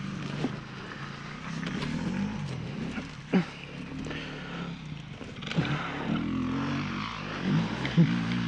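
Dirt bike engine running at idle, its pitch wavering a little, with a sharp knock about three seconds in and another near the end.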